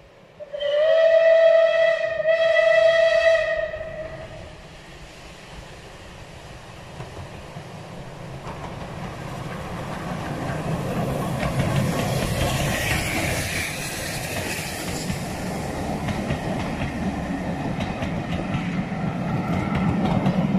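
Steam locomotive whistle sounding two blasts, about a second and a half each with a short break between, the first sliding up slightly in pitch as it starts. Then the locomotive and its coaches approach and run past on the rails, the working exhaust and wheels growing steadily louder.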